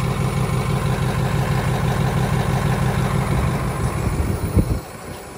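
Detroit Diesel 8.2-litre V8 diesel engine idling steadily close up. The engine sound cuts off sharply near the end.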